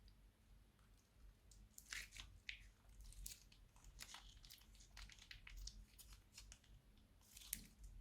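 Faint, irregular crackling and crunching of crunchy slime being squeezed and worked by hand. The run of short crackles starts about two seconds in, with a sharper one near the end.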